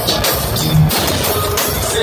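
Loud live electronic music from a concert sound system, with heavy bass, recorded from within the crowd.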